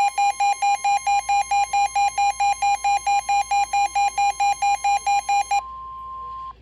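Emergency alert warning tone announcing a severe thunderstorm warning: a loud, rapid beeping about five times a second over a steady high tone. The beeping stops near the end, leaving the steady tone alone for about a second before it cuts off.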